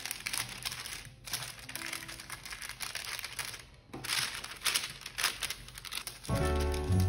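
Baking paper crinkling and rustling as hands press and crease it into a metal baking pan, in crackly bursts with two brief lulls. Background music comes in near the end.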